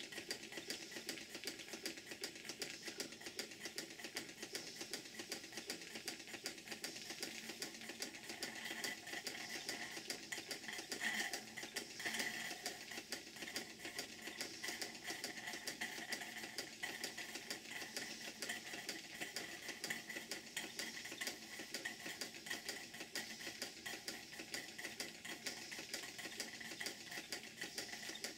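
Model steam beam engine running on live steam: a fast, steady ticking clatter of exhaust beats and moving parts.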